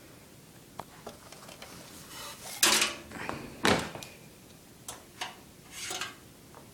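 Metal knocks and rattles of a computer power supply being handled against a steel PC case, a handful of separate clunks with the two loudest near the middle.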